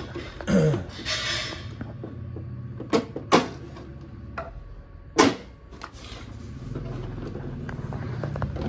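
Knocks and clunks of a wooden wall-clock case being handled: a light scrape near the start, two sharp knocks about three seconds in and another about five seconds in.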